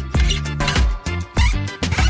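Music with a steady beat, a bass line and drum hits.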